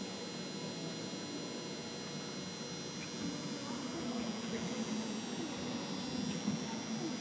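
Indoor arena ambience: a steady electrical hum under the low murmur of a large seated crowd, the murmur swelling slightly about halfway through.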